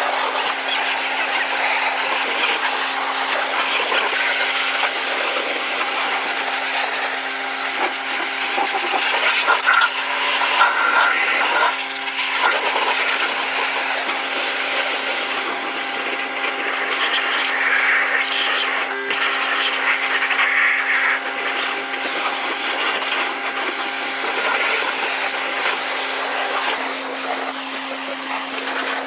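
Pressure washer running with a steady hum, its high-pressure jet hissing against the tractor's tyres and panels, the spray noise swelling and fading as the lance moves.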